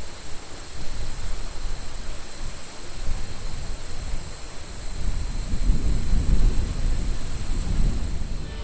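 Wind buffeting the microphone outdoors: an uneven low rumble that comes in gusts and swells about five seconds in.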